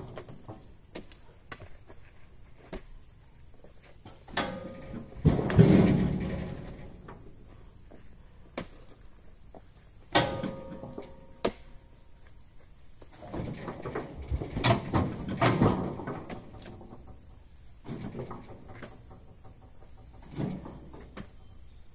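Irregular heavy thuds and knocks as oil palm fruit bunches are handled and land, with smaller clicks and steps between. The loudest thud comes about five seconds in, another about ten seconds in, and a cluster follows a few seconds later.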